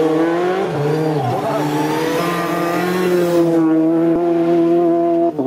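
Rally car engine revving hard through a bend, its pitch dipping and climbing with throttle lifts and gear changes, then holding a steady high note as the car accelerates away. A sharp break in the sound just before the end.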